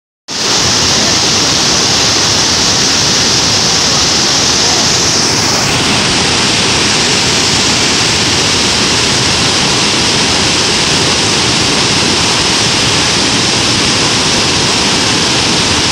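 River waterfall in spate: floodwater pouring over rock ledges in a loud, steady rush of whitewater. The highest hiss eases slightly about six seconds in.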